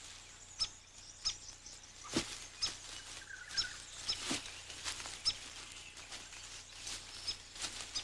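Sparse soft thuds and scuffs from two male grey kangaroos boxing and grappling, with short high bird chirps repeating about once a second behind them.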